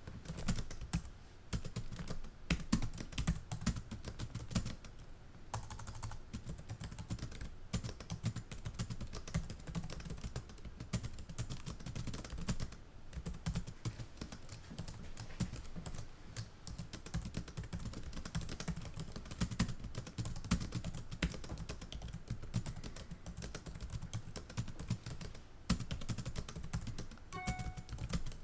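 Fast typing on a computer keyboard, heard close up: a dense, continuous run of key clicks broken by a few short pauses.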